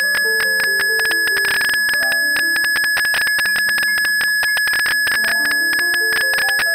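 Blüthner grand piano playing: a high note hammered rapidly and without break rings like a bell over a melody of middle-register notes stepping up and down.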